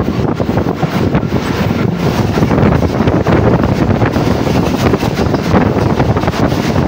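Loud, steady rush of wind buffeting the microphone over the running noise of a passenger express train travelling at speed.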